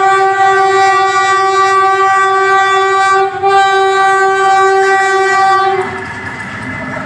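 Horn of PNR diesel locomotive DEL 922 sounding as the train approaches: two long blasts with a short break about three seconds in. The horn stops near the end, leaving the rumble and clatter of the locomotive and coaches rolling close by.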